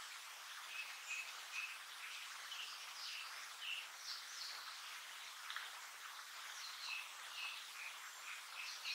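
Blue-and-white flycatcher fledgling calling: short, high notes repeated about twice a second, over a steady background hiss.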